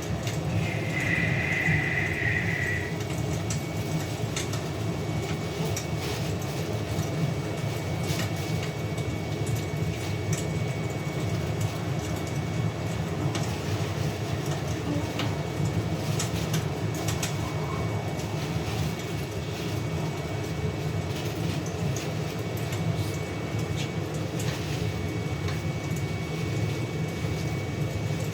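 Fire crackling, with scattered sharp pops over a steady low rumble. A high whistling tone sounds for the first three seconds or so.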